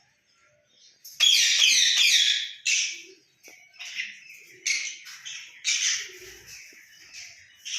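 Parrot calling: a loud, rapid burst of screechy chatter about a second in, followed by a string of short, sharp screeches about once a second.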